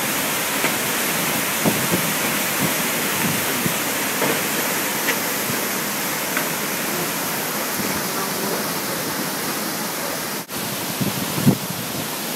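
Hurricane wind and rain making a loud, steady rushing noise, with small knocks scattered through it. The noise drops out briefly about ten seconds in, and a few louder thumps follow near the end.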